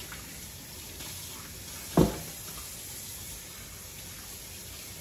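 Kitchen tap running steadily into the sink, with one loud thump about two seconds in.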